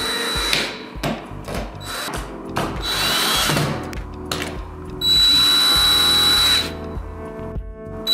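Cordless drill-driver driving screws through steel corner joint plates into an aluminium glass frame profile. It runs in short bursts, the longest lasting about a second and a half about five seconds in.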